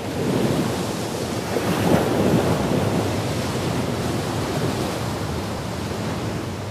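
Sea surf breaking and washing up a beach: a continuous rushing noise of waves, loudest about two seconds in.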